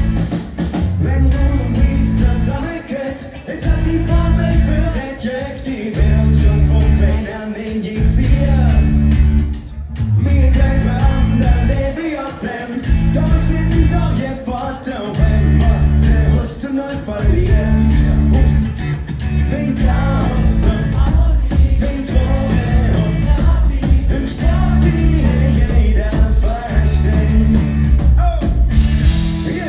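A rock band playing live with a lead singer: drums and bass, electric guitar and a vocal sung in Kölsch dialect.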